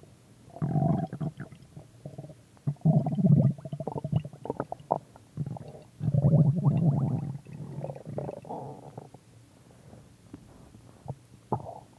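A person's stomach growling in four loud bouts over the first nine seconds, then settling to faint, short sounds.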